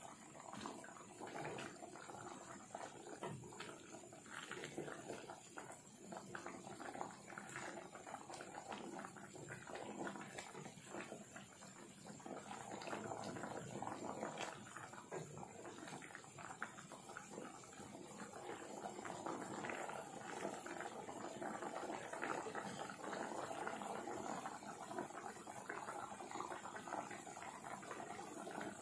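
Thick coconut-milk rendang sauce with beef ribs simmering in a frying pan: continuous bubbling and popping as the liquid cooks down, with a wooden spatula stirring through it. The bubbling grows denser and a little louder about halfway through.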